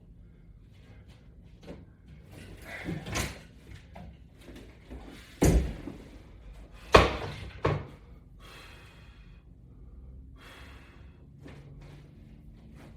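A few sharp knocks and thuds from exercise equipment being handled, the loudest about five and a half and seven seconds in.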